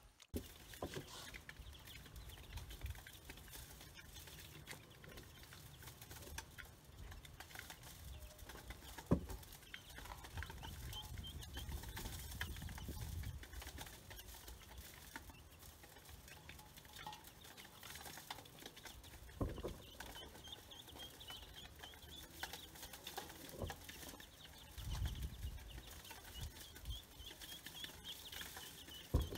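Young chicks and ducklings cheeping as they feed, a steady stream of short high peeps, with a few scattered knocks.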